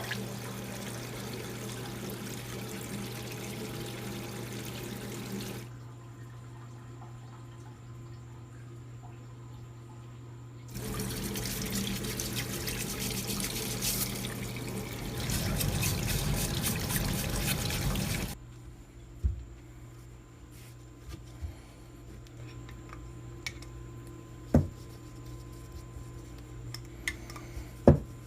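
Water running from a tap in two stretches, the second louder and fuller toward its end, then a few sharp clicks and knocks over a steady low hum.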